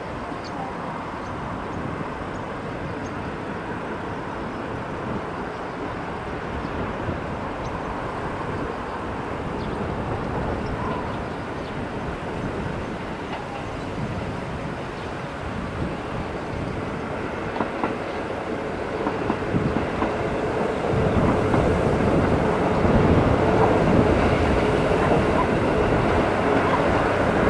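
KiHa 11 series diesel railcar approaching on the line, its diesel engine and wheels on the rails getting louder over the last several seconds, with a steady drone near the end and a few clicks from the wheels on the track.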